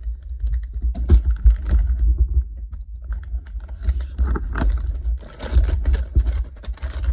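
Plastic packaging of soft-plastic jig trailers crinkling and clicking as it is opened and handled, a dense irregular crackle with dull low bumps underneath.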